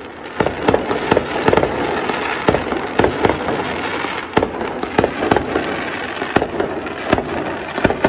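Firecrackers going off in an irregular string of sharp bangs, a few a second, over a continuous crackle.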